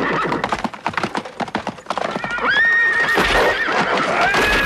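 Horses galloping, a rapid clatter of hooves, with a horse whinnying about halfway through. A steady high tone comes in near the end.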